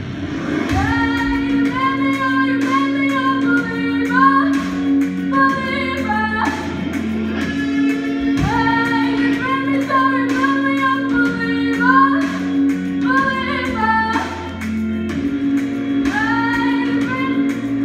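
A girl singing a pop song solo into a microphone over a backing track with steady bass notes, amplified through a PA in a large hall.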